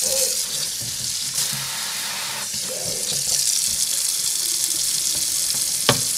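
A steady, loud rushing hiss, with a single sharp knock near the end.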